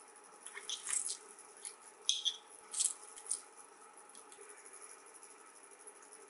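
Small metal tongs clicking and scraping against a ceramic bowl while squeezing mini lime halves: a handful of short, light clicks spread over the first three and a half seconds.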